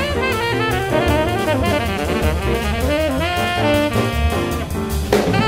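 Background music: jazz with a fast-moving horn melody over drums.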